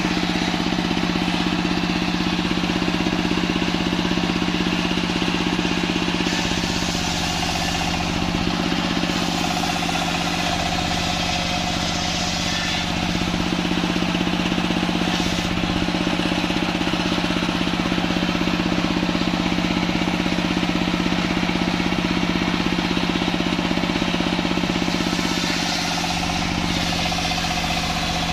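Single-cylinder diesel engine running steadily, driving the large circular saw blade of a small sawmill. The blade rips lengthwise through a log of white champak (kembang kantil) wood, adding a hissing cutting noise and a faint whine at times, about a quarter of the way in and again near the end.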